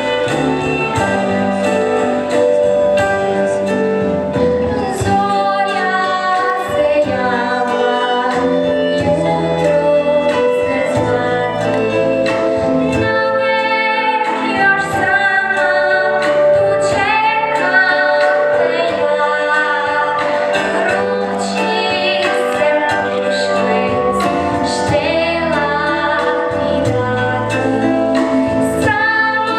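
A young girl singing a folk-style song into a microphone, accompanied by a live band.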